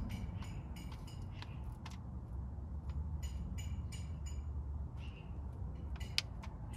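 Plastic bottle of 75W-140 gear oil squeezed by hand, giving a run of short crackles and clicks as it pumps fluid through a hose into a Mercedes W124 rear differential, over a low steady rumble.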